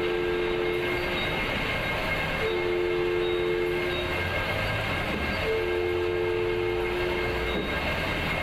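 A tunnelling machine's rotating cutter heads grinding steadily into rock, a dense continuous noise. A two-note horn sounds over it three times, each blast a second or two long, about every three seconds.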